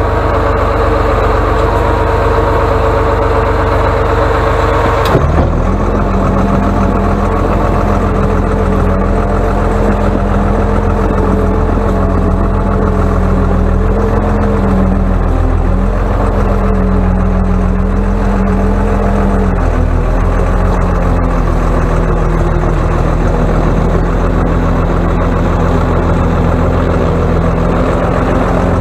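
Atlas 1602 wheeled excavator's diesel engine running steadily under load while its front blade pushes snow. The sound changes abruptly about five seconds in, and the engine pitch dips and recovers a couple of times later on.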